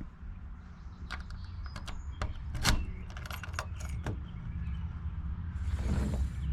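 Keys jangling and sharp metallic clicks of a key and lock mechanism being worked in a sliding patio door's new lock, then a longer scrape near the end. The lock binds and is stiff, with the key hard to pull back out.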